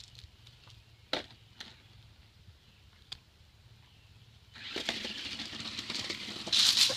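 Toy radio-controlled car's small electric motor whirring as the car drives off about halfway through, getting louder near the end. A few faint clicks come before it.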